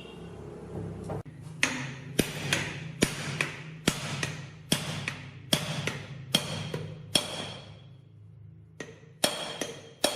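Hammer blows on metal, a steady series of ringing strikes about two a second, pausing for about a second near the end before resuming.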